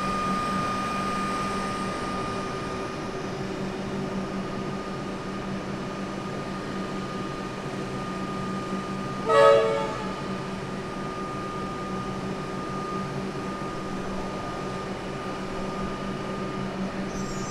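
Electric suburban train standing at the platform with a steady electrical hum, and one short, loud horn blast about nine seconds in.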